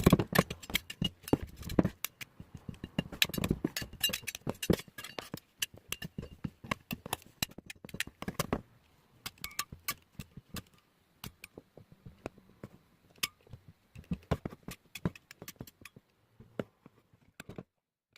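Irregular clicks and taps of small hard objects being handled, dense at first and sparser later, stopping shortly before the end.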